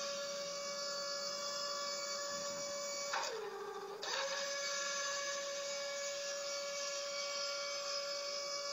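A steady hum of several held tones, its pitch sagging and coming back up about three seconds in.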